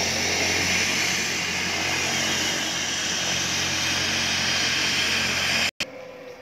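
Agusta A109-type light twin helicopter on the ground, its turbines and rotor running with a loud, steady whine and rush. About five and a half seconds in, the sound cuts off sharply. It resumes much quieter, with a slowly falling whine as the machine winds down.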